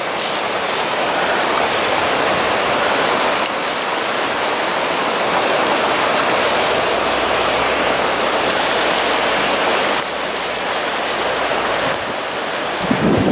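Flash-flood water rushing and churning down a drainage channel as a steady, loud wash of whitewater noise, with small shifts in level about three and a half, ten and twelve seconds in.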